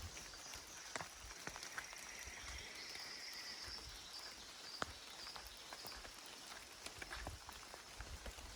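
Rain falling in forest, with scattered raindrops dripping and tapping close by. A bird calls with a long high warbling call through the first half, and a few soft low thuds come near the start and again near the end.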